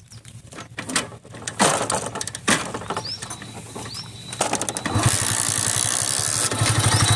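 Hero Splendor iSmart 110's single-cylinder four-stroke engine being started: a few knocks and clicks, then about five seconds in it catches and runs with a steady rapid beat, getting louder near the end. It runs without the noise that came from the worn starter one-way clutch, which has been removed.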